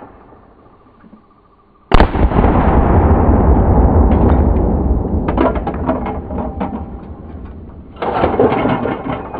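A single shot from a 20-gauge black powder percussion side-by-side shotgun about two seconds in: a sharp report followed by a long rolling echo that fades over several seconds. Near the end a second loud rush of noise begins.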